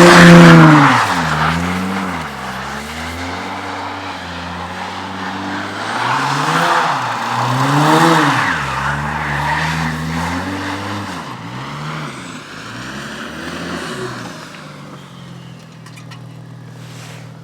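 Audi S4 B5's twin-turbo 2.7-litre V6 revving up and down again and again as the car slides in snow, with tyre noise at the loudest moments. It is loudest at the start and again about eight seconds in, then settles to a steady idle and grows quieter near the end.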